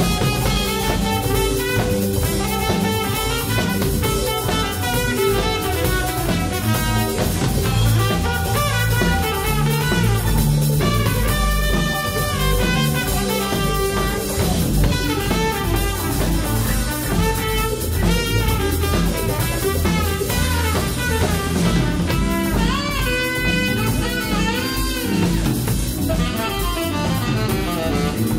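Live jazz band playing: drum kit, electric bass and electric guitar, with trumpet over them.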